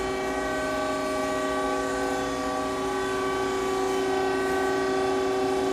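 A steady machine hum made of several held tones, from a powered-up Citizen L16 CNC Swiss-type lathe standing idle.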